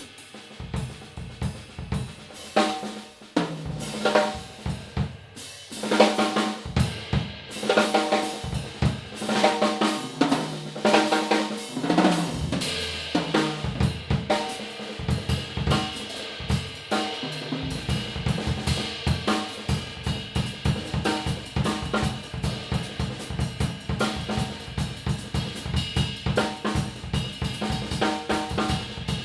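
Yamaha Oak Custom drum kit played and heard through room microphones. Loose tom and snare fills come first, with pitched tom strikes. From about 18 seconds in it settles into a steady groove of kick, snare and cymbals.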